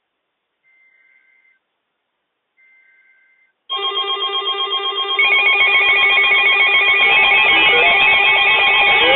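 Two faint short bursts of EAS digital data tones about a second apart. Then, from about four seconds in, loud electronic music with a fast pulsing beat that grows fuller twice, with a rising sweep near the end.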